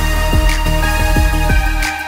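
Background music with a beat: held electronic notes over deep kick drums.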